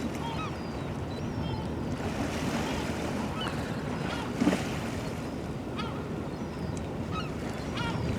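Steady low rumble of wind and river water, with short bird calls scattered throughout and a brief louder sound about four and a half seconds in.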